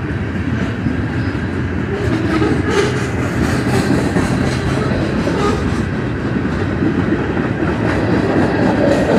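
Freight cars of a mixed manifest train rolling past: a steady rumble of steel wheels on the rails, with repeated clicks as the wheels pass over rail joints.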